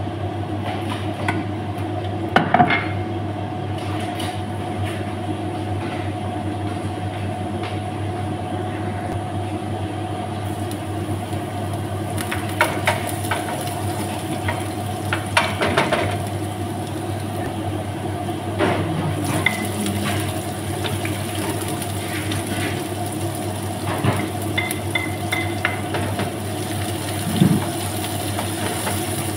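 Chopped garlic and onion sizzling in hot olive oil in a nonstick frying pan while a wooden spatula stirs them, with short scrapes and knocks against the pan. The sizzling sets in about a third of the way in and grows louder past the middle, over a steady low hum.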